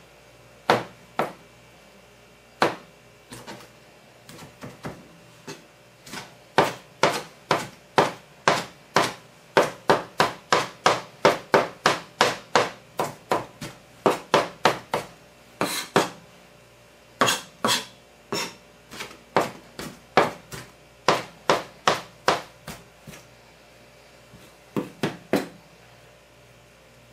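Chef's knife chopping spinach, sun-dried tomatoes and olives on a plastic cutting board: sharp knocks of the blade on the board, about two or three a second, in runs broken by a few short pauses.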